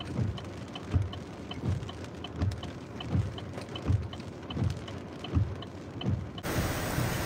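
Rhythmic low thumps, about one every 0.7 seconds, with faint ticks between them. Near the end this changes suddenly to the steady, dense hiss of heavy rain.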